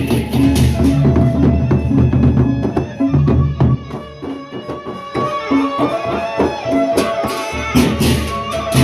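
Gendang beleq ensemble playing: large double-headed barrel drums beaten in a busy interlocking rhythm, with cymbal clashes and steady ringing metallic tones above. The drumming thins out about three seconds in and builds back up from about five seconds.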